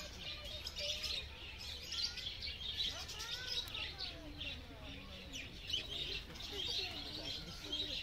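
A flock of budgerigars (budgies) chattering and chirping together in a dense, continuous twitter of many short high calls.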